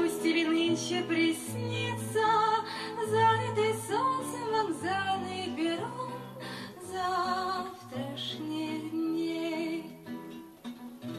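Background music: a song with strummed guitar, a bass line and a wavering melody, in a passage without lyrics.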